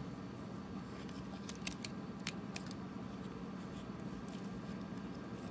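A few faint metallic clicks of keys and key rings shifting on a keychain in the hand, mostly between one and a half and two and a half seconds in, over a steady low hum.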